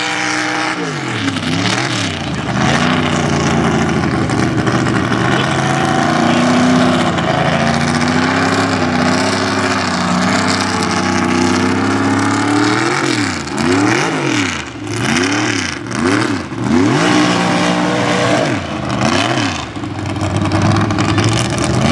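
Mega mud truck's engine running hard at high revs with a wavering pitch while the truck tears across dirt. About two-thirds of the way through, the driver blips the throttle in a quick run of sharp revs up and down, then the engine climbs again near the end.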